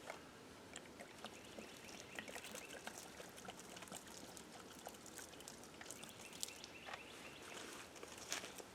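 Faint swamp ambience with scattered small ticks, clicks and rustles at irregular intervals, a couple of them louder, about six and a half and eight and a half seconds in.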